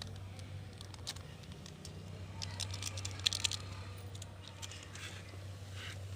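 Eno and vinegar fizzing in a home-made volcano model, an irregular crackle of small pops that thickens for a second or so near the middle, over a steady low hum.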